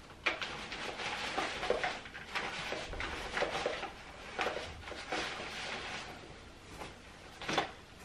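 Nylon fabric of an REI Flash 45 backpack rustling and scraping in short, irregular bursts as items are pushed into and packed around its top lid pocket.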